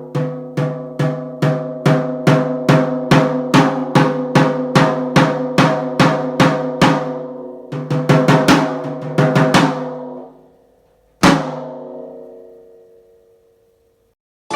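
PDP Concept Birch rack tom struck with a stick, about three even hits a second, each ringing open with a sustained tone, then a quick flurry of faster strokes whose ring fades away. One last single hit about eleven seconds in rings out for a few seconds, and right at the end a different drum is struck.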